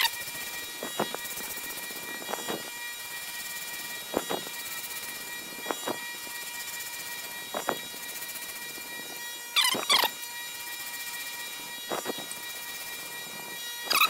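Surface grinder's abrasive wheel spinning with a steady whine, screeching briefly about every two seconds as it passes across the end of a high-speed-steel punch and grinds an angled facet into it. The loudest screech, with a gliding pitch, comes about ten seconds in.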